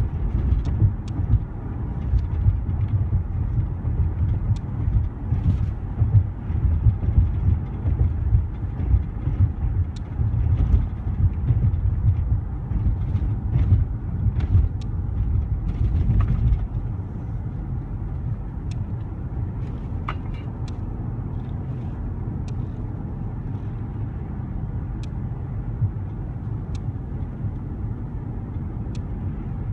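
Car cabin noise while driving with the windows closed: a low road and engine rumble with faint scattered ticks. It is louder and rougher for the first half and settles to a smoother, quieter hum a little past halfway.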